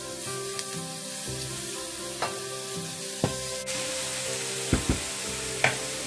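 Cooked prawns and chopped vegetables sizzling steadily in a stainless steel frying pan on high heat while being stirred with a spatula, which knocks against the pan five or six times, the loudest knocks a little after the middle and near the end.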